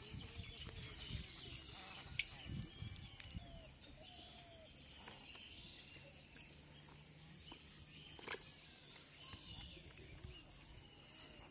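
Quiet rural outdoor ambience with birds chirping in short calls, and two sharp clicks, one about two seconds in and one near eight seconds.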